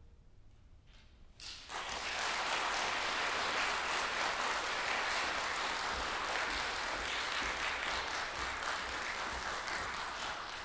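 Audience applauding after a song ends: after a brief hush, clapping starts about a second and a half in, holds steady, and begins to fade near the end.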